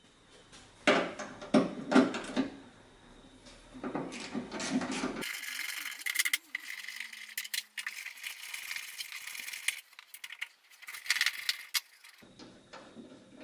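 Hands working a tailgate latch release cable loose: a run of sharp clicks and knocks, then light rattling and scraping of small metal and plastic parts.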